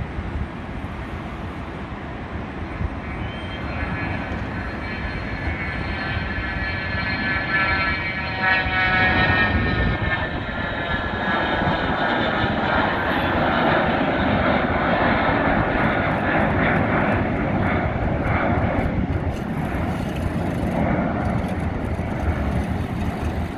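A Cessna 680 Citation Sovereign business jet's twin Pratt & Whitney Canada PW306C turbofans at takeoff power. A jet whine with several steady tones over a rushing noise grows louder and jumps up about nine seconds in, then stays loud as the jet climbs away.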